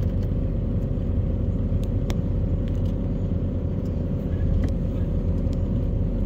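A motor vehicle's engine running steadily at low speed, a constant low hum, with a few faint clicks.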